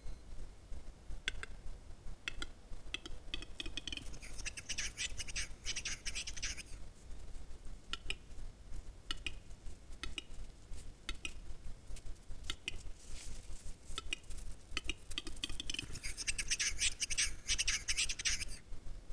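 Male western capercaillie's display song, twice: a run of dry clicks that speeds up, then two to three seconds of scratchy grinding, the whetting phase of the song. The second song ends near the end.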